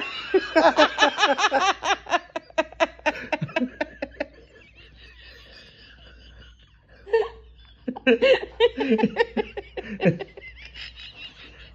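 Adult laughing heartily in quick repeated bursts for the first few seconds, then laughing again from about eight seconds in.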